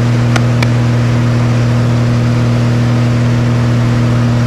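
Loud, steady drone of a single-engine aerobatic propeller plane's engine and propeller, heard inside the cockpit in level cruise: a constant low hum with its overtones and a rushing noise above. Two short clicks come about half a second in.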